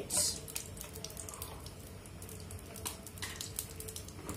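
Garlic cloves frying in hot coconut oil in a pan: a light, steady sizzle with many small irregular crackles and pops.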